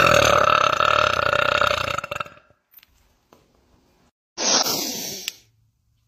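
A woman's long, loud burp with a steady pitch, lasting a little over two seconds. A second, shorter sound follows about four and a half seconds in.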